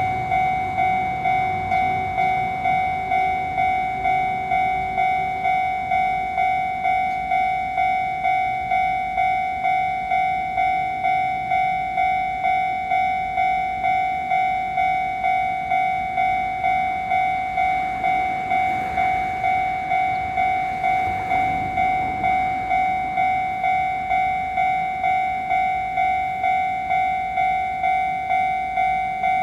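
Japanese railway level-crossing warning bell ringing steadily, an electronic 'kan-kan' at about two strikes a second, which signals that a train is approaching. A low rumble beneath it swells about two-thirds of the way through.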